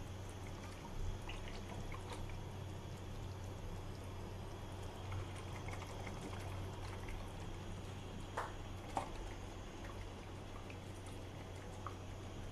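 Milk pouring from a can into a hot frying pan of mushrooms in cream sauce, over a low steady hum. A few soft knocks come through, the clearest two about two thirds of the way in.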